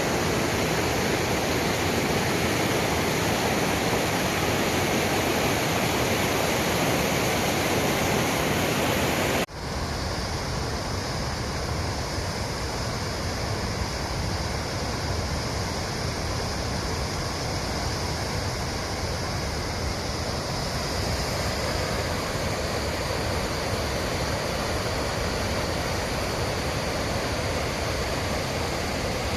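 Rushing water of a mountain stream or waterfall, a steady even roar. About nine seconds in it breaks off abruptly and resumes a little quieter, with a thinner low end.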